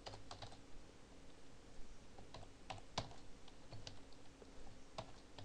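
Computer keyboard keys being typed: faint, irregular single keystrokes, roughly one every half second, with a sharper one about three seconds in.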